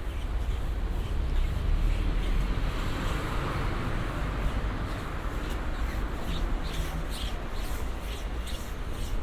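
City street ambience heard while walking: a steady low traffic rumble, with a vehicle passing that swells and fades about three to four seconds in, and footsteps ticking on the pavement in the second half.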